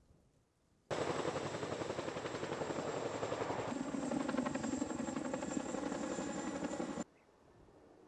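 Firefighting helicopter's rotor beating rapidly, with a steady high turbine whine. It starts suddenly about a second in, changes character a little before the middle, and cuts off suddenly near the end.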